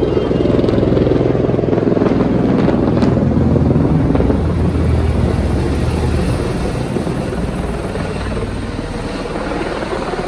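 Helicopter flying low overhead, its rotor beating in a rapid steady chop. It is loudest in the first few seconds and fades as the helicopter moves away.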